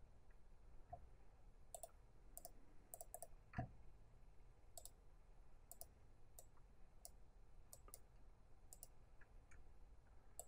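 Faint computer mouse clicks, about ten at irregular intervals, from placing anchor points with the pen tool in a drawing program, over near silence. There is one soft thud about three and a half seconds in.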